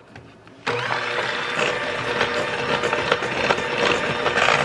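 Electric hand mixer switched on about half a second in, then running steadily as its beaters work through thick banana cake batter in a mixing bowl.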